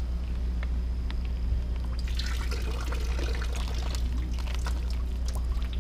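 Marinade pouring and trickling out of a zip-lock bag of sliced sheepshead as it is drained, heaviest for a couple of seconds about two seconds in. A steady low hum runs underneath.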